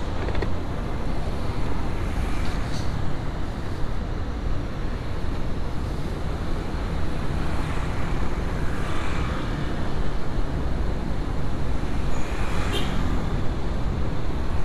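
Riding a motorcycle through city traffic: steady, low rumbling engine, road and traffic noise, with a few brief passing sounds standing out near the middle and near the end.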